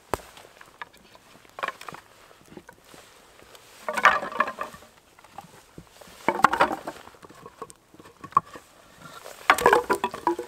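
Short round wooden logs clattering against one another as armfuls are dropped onto a pile, three times, each a quick cluster of hollow wooden knocks.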